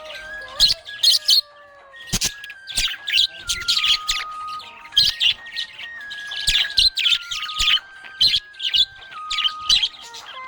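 Budgerigars chirping and warbling in rapid, busy bursts, with short pauses between. Under them runs a simple tune of held notes stepping up and down in pitch.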